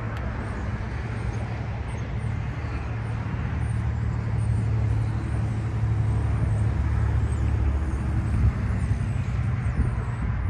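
A motor vehicle's engine running with a steady low hum, growing louder for a few seconds in the middle.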